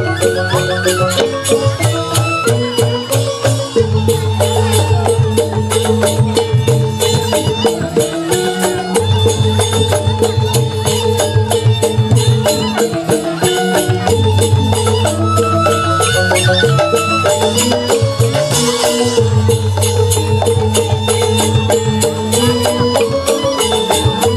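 Balinese joged bumbung gamelan playing an instrumental tabuh petegak: bamboo tube xylophones struck with mallets in fast, busy interlocking patterns, with kendang drums and suling bamboo flutes. A low bass tone comes and goes in long stretches under the melody.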